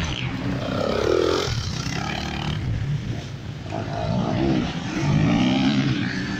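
Enduro motorcycle engines revving, the pitch climbing and dropping with the throttle, with two rising revs about four and five seconds in.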